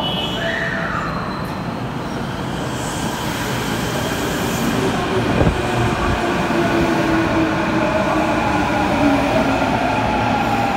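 Osaka Metro Chuo Line subway train arriving at an underground platform: a steady rumble of wheels on rail that grows louder as it pulls in. There are a couple of low thumps about halfway through, and a motor whine slowly falls in pitch as the train brakes.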